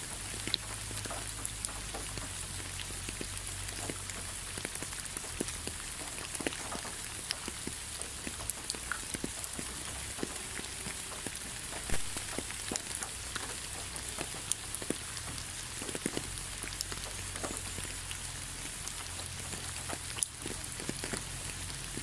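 Steady rain: an even hiss with many separate drops ticking close by, one of them louder about twelve seconds in.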